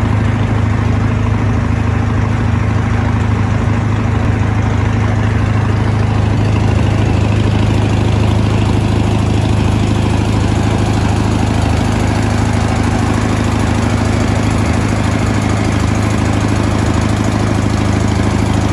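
A small river boat's engine running steadily underway, a loud, even low hum over the rushing noise of the wake.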